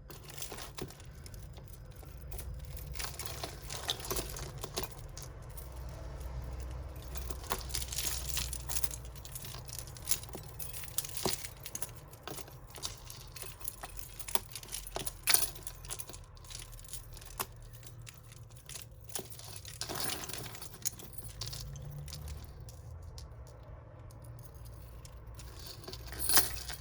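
Costume jewellery being handled and sorted by hand: metal chains, beads and pendants clinking and rattling against each other, with crinkling of a bag, as a stream of small irregular clicks. A few sharper clinks stand out about halfway through and near the end.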